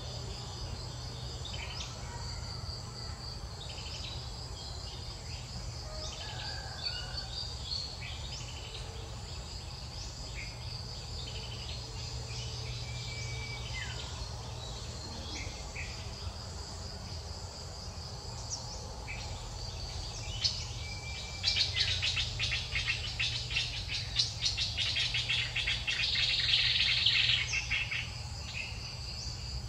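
Outdoor insect chorus of crickets and cicadas trilling steadily, with scattered short bird chirps. Past the middle, a louder rapid buzzing swells up for about six seconds, then drops back.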